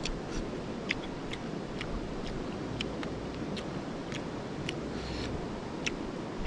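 Steady rush of river water, with irregular sharp clicks and crackles over it, roughly two a second.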